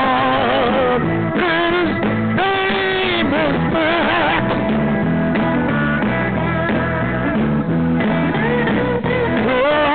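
A band playing a song, with a voice singing in long, wavering notes over a walking bass line.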